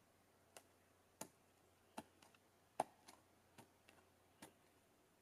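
Wooden stick shovel digging out a fire pit in forest soil: a run of short, sharp knocks, a little more than one a second, the loudest near the middle.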